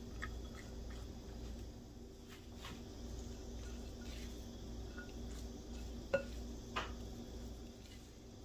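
Spatula mixing shredded cheese filling in a glass mixing bowl, with a few light taps and two sharper clinks against the glass a little after six seconds in, over a low steady hum.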